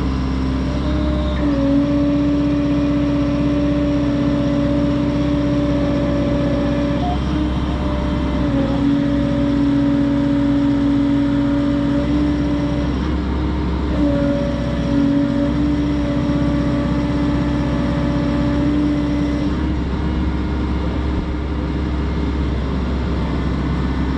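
Excavator's diesel engine running steadily, with a hydraulic whine that shifts pitch a few times and drops away about twenty seconds in.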